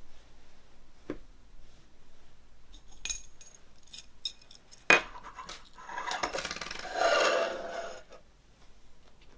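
Small objects handled on a wooden tabletop: light taps and clicks, a sharp tap about five seconds in, then a couple of seconds of rustling with light metallic clinks as a keychain with a metal ring is brought out and set down.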